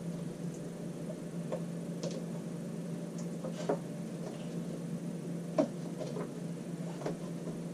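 Light clicks and taps of small hardware and a plastic RV roof vent cover being handled and fitted by hand: about five short knocks a second or so apart, the loudest just past the middle, over a steady low hum.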